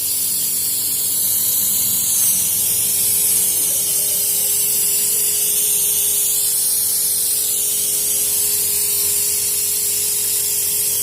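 Continuous high-pitched spray hiss during work on a Honda CR-V's engine, steady throughout, with a faint steady hum underneath.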